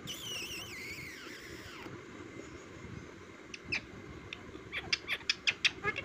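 Indian ringneck parakeet calling: a high, warbling call that falls in pitch over the first two seconds, then a couple of short high notes. Near the end comes a quick run of short, sharp clicks.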